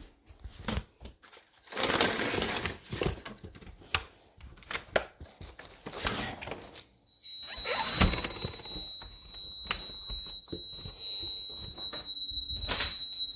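Knocks and scraping as a window is handled and opened. About seven seconds in, a Honeywell alarm panel's sounder starts a steady high-pitched tone, set off by the window sensor being tripped while the system is armed.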